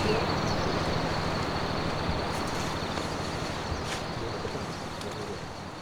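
Outdoor nature ambience: a steady rushing noise with a thin, steady high tone running through it, slowly fading out near the end.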